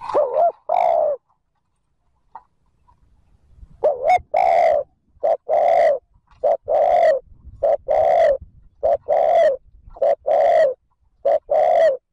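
Spotted dove cooing. Two coos, then after a pause a quick run of paired coos, each a short note followed by a longer one, about one pair a second. This is the urgent 'thúc gù' coo that a decoy male gives to provoke rival males.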